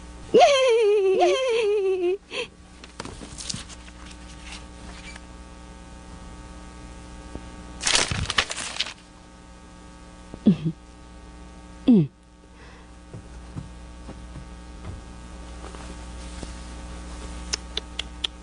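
A young girl's high-pitched voice crying out in a long, wavering call for about two seconds at the start, the loudest sound here. Two short falling vocal sounds follow later, over a steady electrical hum.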